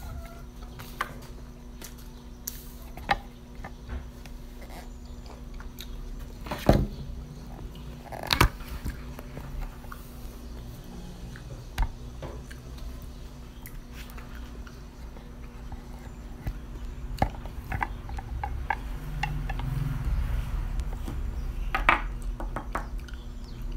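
A small crisp apple being bitten into and chewed, with scattered clicks and a few sharper knocks over a low steady hum.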